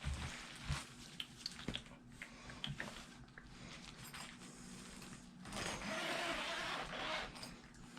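Handling noise from a replica championship belt and its storage bag: scattered light knocks and clicks, then a longer rustle about five and a half seconds in.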